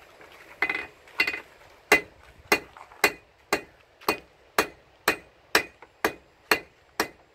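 Blacksmith's hand hammer striking a red-hot steel bar on an anvil in a steady rhythm of about two ringing blows a second, drawing the bar out to a taper.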